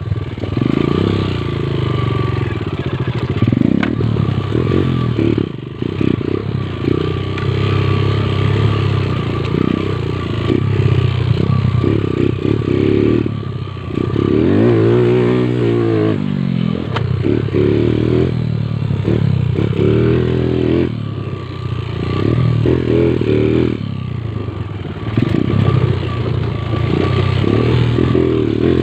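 Motorcycle engine under constantly changing throttle, its revs rising and falling over and over as it is ridden. About halfway through, the revs drop low and climb back up.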